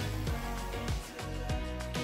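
Background music: an instrumental passage of a pop song, with bass and a steady drum beat.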